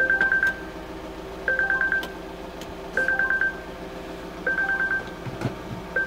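Volvo XC40 warning chime: a half-second run of rapid high beeps at one pitch, repeating about every one and a half seconds. It sounds because the bonnet is open.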